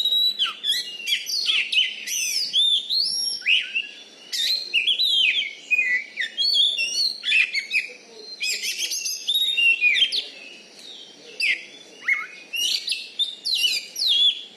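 Oriental magpie-robin (kacer) singing a loud, continuous, varied song of rapid whistled phrases, with quick rising and falling glides and short pauses between bursts.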